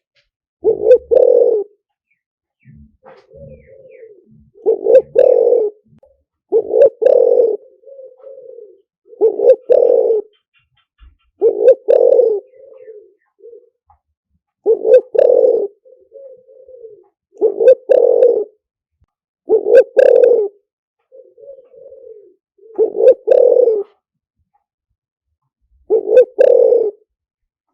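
Spotted dove cooing, a decoy-call recording: loud coo phrases about every two to three seconds with softer, lower coos between them. The loudest notes are distorted by clipping.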